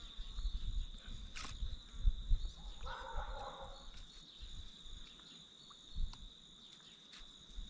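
A steady high-pitched insect trill runs throughout. Uneven low rumbling sounds on the microphone, and a light clink of a metal spoon against the plastic bowl comes a little under one and a half seconds in.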